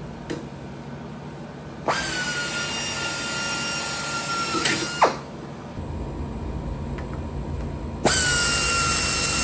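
Pneumatic drill rated at 4,000 RPM match-drilling rivet holes through an aluminium J channel clecoed to a wing spar flange. It makes two runs, one starting about two seconds in and lasting about three seconds, the other starting near the end. Each run is a steady high whine over air hiss that sags slightly in pitch while cutting and drops away as the trigger is released.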